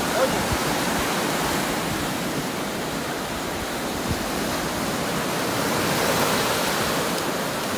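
Surf washing onto a sandy beach: a steady rush of breaking waves that swells a little about six seconds in.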